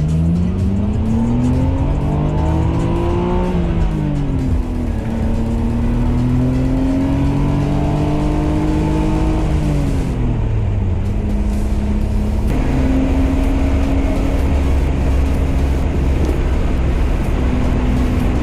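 Nissan R33 Skyline GT-R's twin-turbo straight-six accelerating through the gears: the engine pitch climbs, drops at a shift about four seconds in, climbs again and drops at another shift around ten seconds in, then holds a steady cruise.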